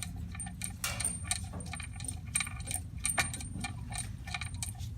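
Steel bolts and small tools being handled, clinking against each other and against metal, in a string of irregular light metallic clicks and taps.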